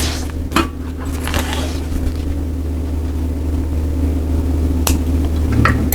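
Sewing machine running with a steady motor hum as it stitches, with a few sharp clicks.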